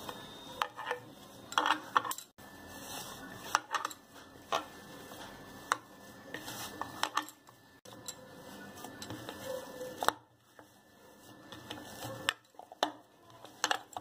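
A hand mashing and kneading boiled potatoes with powdered semolina, herbs and spices in a ceramic bowl, with irregular sharp clicks and knocks against the bowl.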